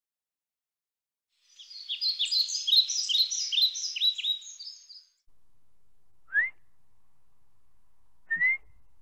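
A songbird twittering in a quick run of falling chirps for about three seconds. Then, over faint outdoor background, come two short rising whistles about two seconds apart: a hunter whistling to call his dog.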